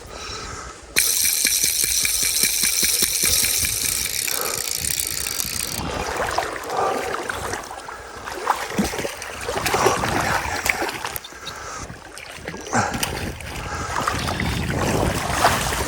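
A loud, steady, high-pitched buzzing hiss lasting about five seconds, starting suddenly a second in. It is followed by water splashing and sloshing around a hooked redband trout as it is played on a fly rod.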